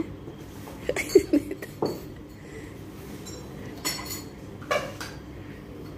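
China plates, saucers and cups being set down on a table: a few light knocks and clinks spread out, some with a short ringing.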